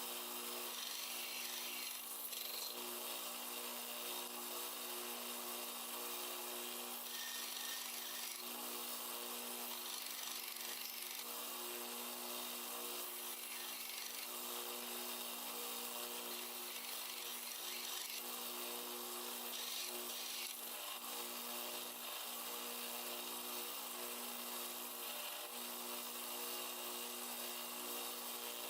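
Power sander running at a steady level while sanding armadillo-shell handle scales, with a constant motor hum under the rasp of the abrasive.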